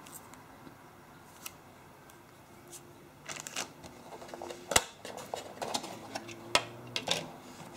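Hands handling a cardboard phone box and its contents: quiet at first, then about three seconds in, rustling and scattered light clicks and taps as items are lifted out, with two sharper clicks.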